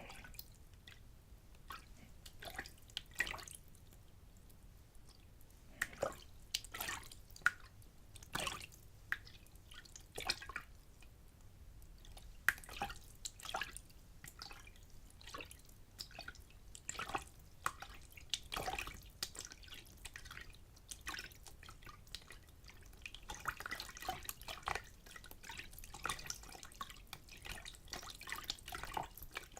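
A little water being splashed around in a bin: scattered small splashes and drips at irregular intervals, coming more often in the last few seconds.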